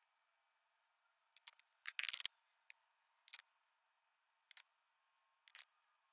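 Small sharp clicks of skateboard bearings and their parts handled by hand on a tabletop, scattered through near silence, with a quick run of clicks about two seconds in.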